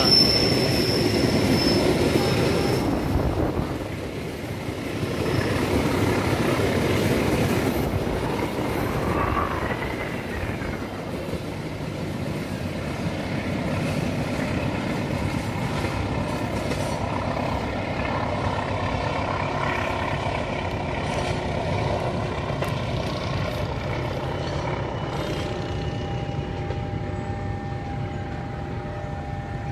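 Argo Muria long-distance passenger train's coaches passing close by with wheel and rail noise, loudest over the first few seconds, then fading to a steady rumble as the train draws away. A faint steady whine comes in near the end.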